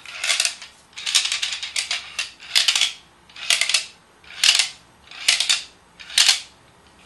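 Baby rattle toy shaken back and forth: plastic beads clatter inside its clear plastic shell in a burst about once a second.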